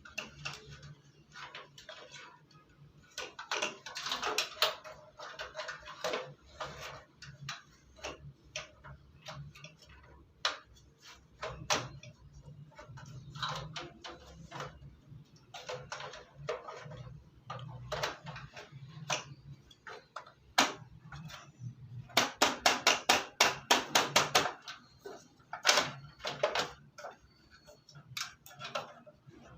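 Small plastic and metal clicks and taps from handling desktop computer parts, scattered and irregular. About three-quarters of the way in there is a quick run of a dozen or so sharp clicks in a row.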